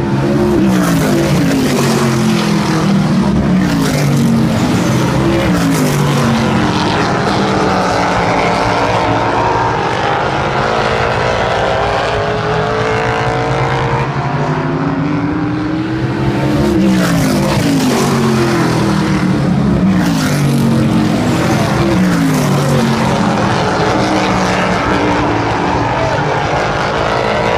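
A field of oval-track race cars running laps at speed. Many engine notes overlap, rising in pitch as the cars accelerate and falling as they back off, and the pack swells past twice.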